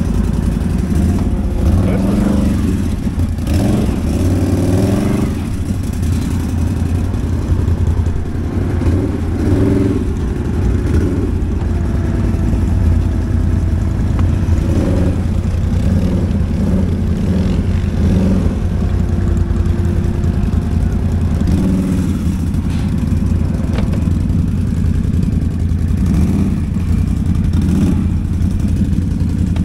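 ATV (quad bike) engine running while ridden, the revs rising and falling several times.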